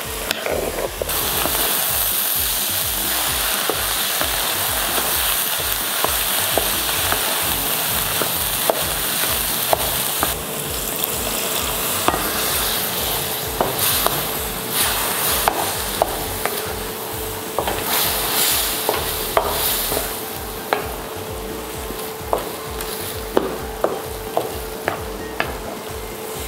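Vegetables and mashed potato sizzling in a metal kadai while a spatula stirs and mashes them into the pav bhaji masala, with frequent sharp taps and scrapes of the spatula against the pan.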